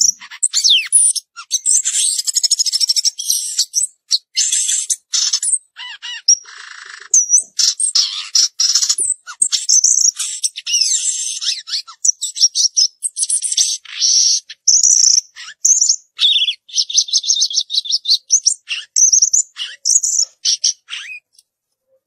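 Caged samyong garugiwa songbird singing a long, varied song of high chirps, sliding whistles and rapid trills, in quick phrases broken by short pauses. A fast even trill comes in about halfway through, and the song stops just before the end.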